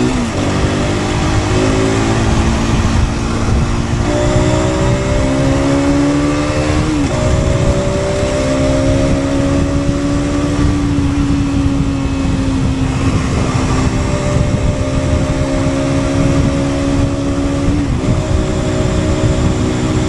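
2023 Aprilia RS 125's single-cylinder four-stroke engine under way. Its pitch climbs under acceleration and drops sharply at gear changes: one right at the start, one about 7 seconds in and one near the end, with steadier cruising between. Heavy wind rush runs underneath.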